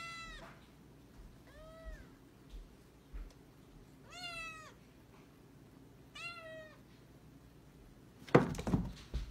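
Tabby kitten meowing four times, short arched meows each about half a second long, spaced a second or two apart. Near the end come loud thumps and clattering as the kitten tumbles off the carpeted cat tree.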